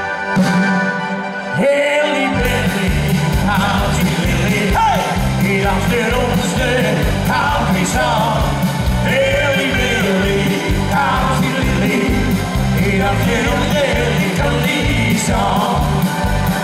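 Live band playing with accordion, drums and bass: a held accordion chord, then drums and bass come in about two seconds in with a steady beat, and a voice sings over the band.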